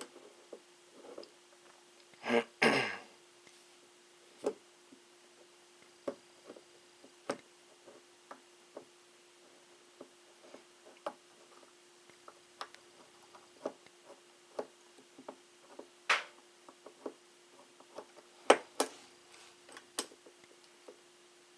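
Scattered faint metallic clicks and taps of steel M14 trigger-group parts being squeezed together against the hammer spring while a roll pin punch is worked to line up the trigger pin, with a louder, longer handling noise about two and a half seconds in and the sharpest clicks near the end. A faint steady hum lies underneath.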